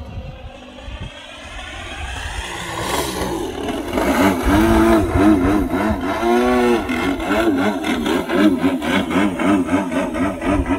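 Model aerobatic plane's engine and propeller. It grows much louder about four seconds in, then its pitch swings up and down about twice a second, the way an engine sounds when the throttle is worked during 3D manoeuvres.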